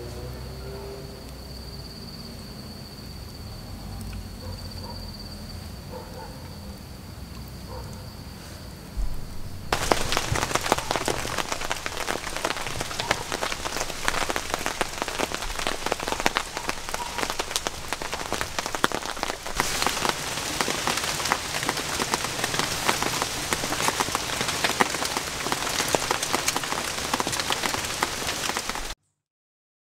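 A quiet night with a steady high insect trill for about ten seconds, then heavy rain cuts in abruptly, dense with individual drop hits, and stops suddenly near the end.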